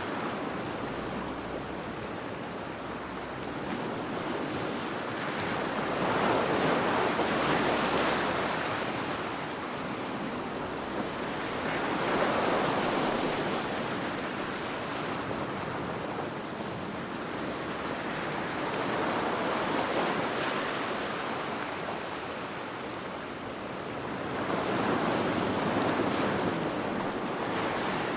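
Ocean surf: waves breaking and washing up the beach in slow swells about every six seconds, loudest around 7, 12, 20 and 25 seconds in, over a constant wash of water and some wind.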